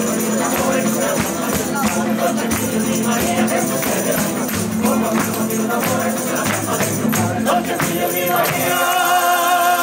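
Folk group singing to strummed acoustic guitars with a tambourine shaken and struck throughout. A long held note closes the phrase from about a second before the end.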